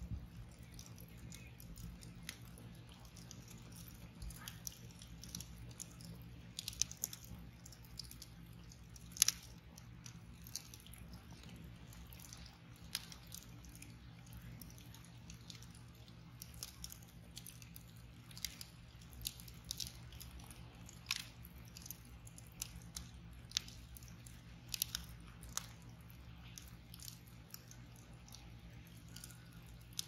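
Wood fire crackling in a metal fire ring: a log over glowing embers gives off irregular sharp pops and snaps, the loudest about nine seconds in, over a low steady hum.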